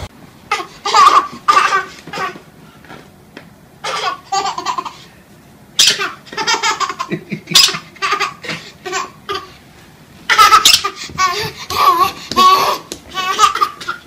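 A toddler laughing in several bouts with short pauses between.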